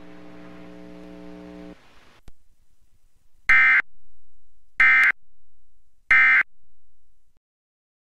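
Emergency Alert System end-of-message tones: three short, buzzy bursts of digital data, about a second and a quarter apart, marking the end of the alert broadcast. A faint steady hum stops about two seconds in, before the bursts.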